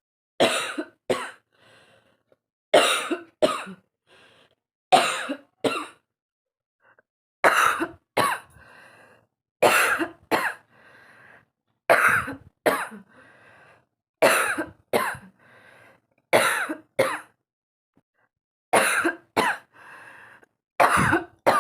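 A woman coughing on purpose, over and over: loud coughs in pairs, about one pair every two seconds, with quieter sounds between them.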